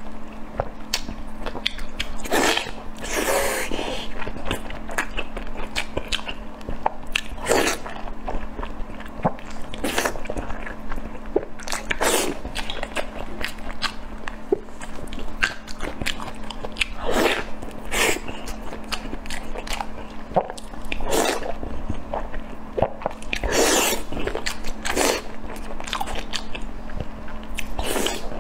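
Close-miked eating: wet chewing and biting of sauce-glazed food, with sharp smacks and crunches every second or so over a steady low hum.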